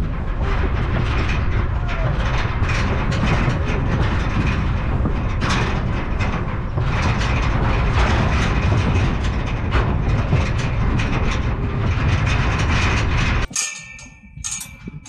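Metal livestock trailer rattling and clanking over a steady, loud rumble. It cuts off suddenly near the end.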